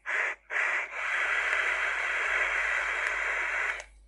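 A person's breath while vaping on a Vype eBox e-cigarette: a few short puffs on the device, then one long, steady breath of about three seconds that stops abruptly.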